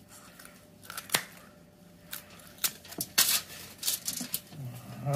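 Poultry shears cutting through a Cornish game hen's backbone: a series of sharp, separate snips and cracks as the blades close on bone, coming closer together in the second half as the backbone comes free.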